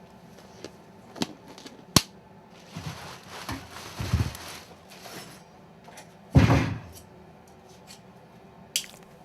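Foley sound effects: two sharp knocks, then a scraping, rustling stretch with low thuds about four seconds in, then a single heavy thud, the loudest sound, about six seconds in. A few sharp clicks follow near the end.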